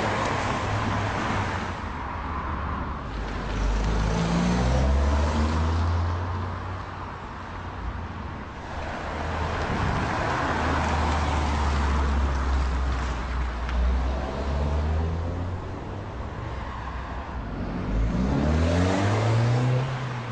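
A MINI Countryman's engine running as the car drives and accelerates, its pitch rising with each burst of revs, most clearly about three seconds in and again near the end.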